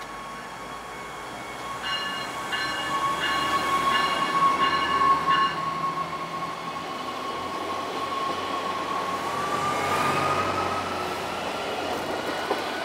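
NJ Transit River Line Stadler GTW diesel-electric light-rail car pulling out of the station, with a steady high whine that rises in pitch from about nine seconds in as it picks up speed. Near the start a chime repeats about six times, typical of a door-closing warning.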